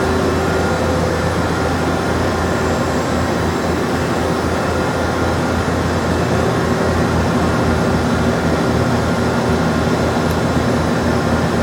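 Steady hum and whir of running machinery, with several constant tones over a low drone.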